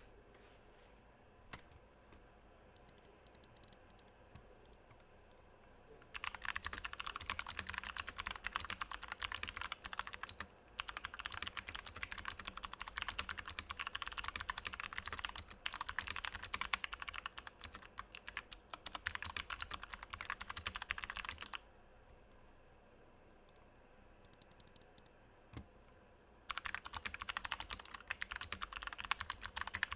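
Typing on a Glorious GMMK TKL mechanical keyboard with Kailh Box Jade clicky switches, unlubed, with stock stabilizers: a fast, dense stream of sharp key clicks. For about the first six seconds, and again for a few seconds about two-thirds of the way through, there are only sparse, faint key presses.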